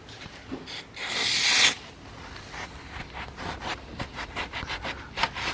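Rubbing and scraping at a car's inner wing panel, as the metal is cleaned by hand. A short, loud hiss sounds about a second in, followed by many uneven scratchy strokes.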